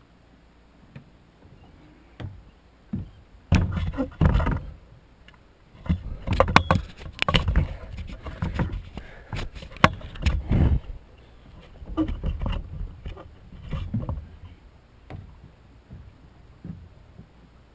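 Camera handling noise: the camera rubbing and knocking against a sweatshirt in several dense bursts, with scattered clicks and thumps in a small open boat.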